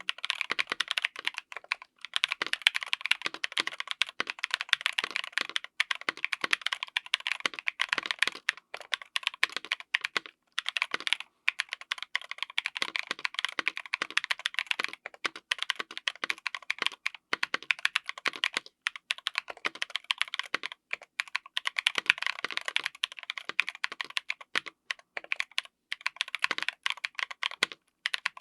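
Continuous fast typing on a mechanical keyboard with stock, unlubed Durock Mamba linear switches on an FR4 plate: a dense stream of key strikes, broken by short pauses every few seconds.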